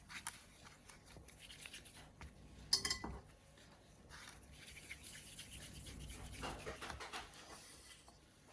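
Faint kitchen handling sounds: light rubbing and scraping, with one sharp ringing clink of a utensil or dish about three seconds in.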